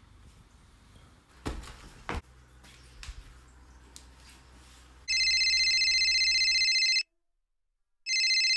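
Smartphone ringing: a steady high electronic ring tone lasting about two seconds, then after a second's break it starts ringing again near the end. Before the ring, two soft thumps about one and a half and two seconds in.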